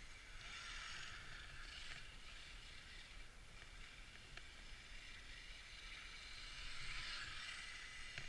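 Axial Yeti SCORE trophy truck, an electric radio-controlled truck, with its motor and drivetrain whining as it drives over snow, heard faint from a distance. The whine swells about a second in and again, louder, near the end as the truck speeds up.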